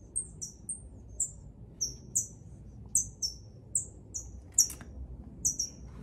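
Hummingbird giving a run of short, sharp, high-pitched chip notes, each falling in pitch, about two a second, while it chases off another bird.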